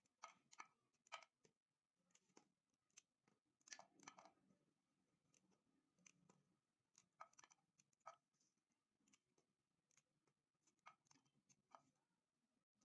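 Faint, irregular crisp snaps and clicks, about fifteen scattered through, some in quick pairs, with a soft crunching cluster about four seconds in.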